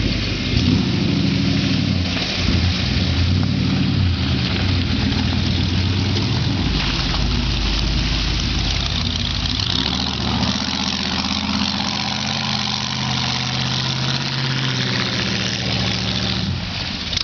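Engine of a lifted four-wheel-drive Cadillac limousine being driven through a mud bog, its pitch rising and falling as it is worked.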